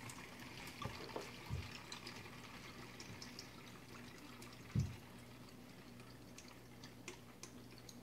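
Faint dripping and trickling of water running through a homemade two-bottle fountain, with scattered small ticks over a faint steady hum. Two soft low thumps, about one and a half seconds in and near five seconds in, the second the loudest.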